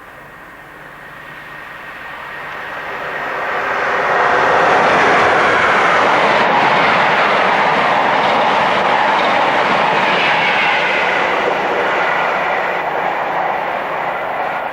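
Electric train passing at speed: the noise of wheels on rail builds over about four seconds, stays loud for about eight, then begins to fade as it draws away.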